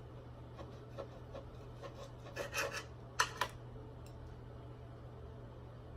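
Faint scraping and rubbing of eating utensils against a plate while handling a steak: a few soft strokes, then two louder short scrapes around two and a half and three seconds in. A steady low hum runs underneath.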